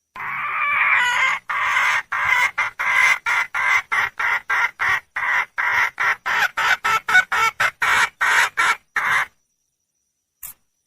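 Junglefowl hen calling for a mate: one long call, then a run of short clucks about three a second that stops abruptly. A faint click follows near the end.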